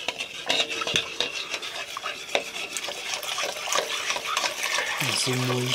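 Long metal spoon stirring and scraping in a hot metal karahi, clinking against the pan, which rings briefly after some strikes. From about three seconds in, milk is poured into the hot pan while the stirring goes on, with a thickening hiss.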